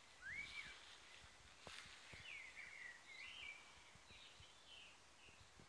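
Faint birdsong: a songbird's short whistled phrases, sliding up and down in pitch, repeated several times over a quiet outdoor hiss. A single sharp click about one and a half seconds in.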